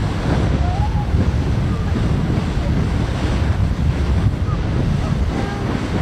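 Beehive Geyser erupting: a cone geyser jetting its water column out of its narrow nozzle, heard as a loud, steady rushing noise with a heavy low rumble.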